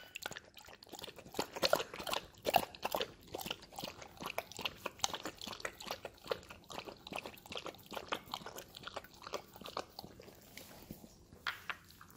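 Siberian husky eating softened dog food from a glass bowl: quick, irregular chewing and smacking sounds, several a second, thinning out near the end.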